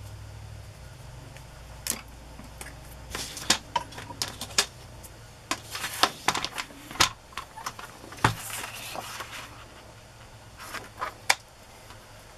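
A plastic sliding paper trimmer being handled and laid down on paper and a cutting mat: a scatter of sharp clicks and taps, with a brief rustle of paper in the middle.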